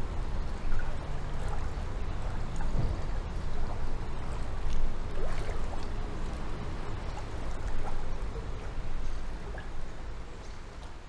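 Canal water flowing, a steady rushing with a low rumble under it, fading out near the end.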